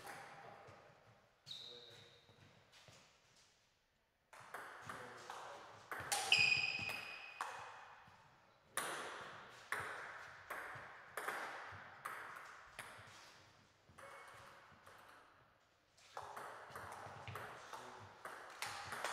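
Table tennis ball clicking off bats and the table, single hits about a second apart with a short echo after each, and a pause between rallies. Two short high squeaks, the louder a little after the middle.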